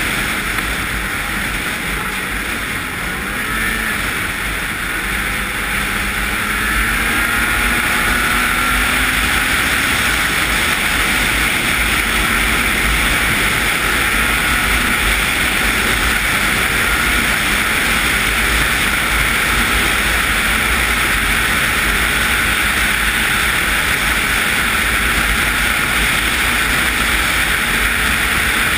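Ski-Doo MXZ 800 two-stroke snowmobile running at trail speed: steady engine drone mixed with a rush of wind and track noise, growing louder about seven seconds in and holding steady after that.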